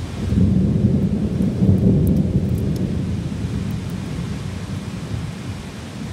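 A long rumble of thunder that swells about half a second in and slowly dies away, over steady heavy rain.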